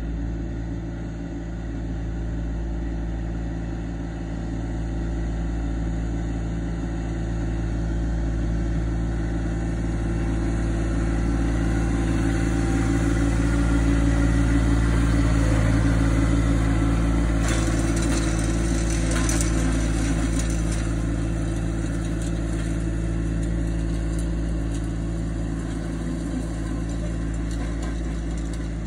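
John Deere 2025R compact tractor's three-cylinder diesel engine running steadily as it tows a landscape rake over loose dirt, getting louder as it passes close by in the middle and then easing off. A spell of rattling comes in about two-thirds of the way through.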